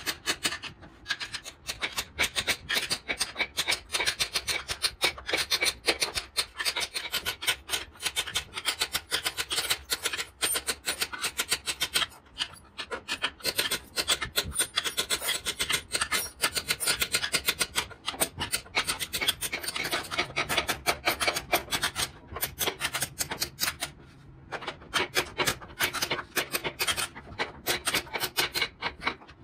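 A hand tool scraping and rubbing across wood in quick, short, repeated strokes, with a few brief pauses.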